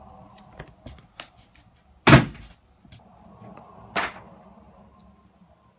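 Two sharp thumps in a small room, the louder about two seconds in and a weaker one about four seconds in, with a few light clicks and a faint steady hum underneath.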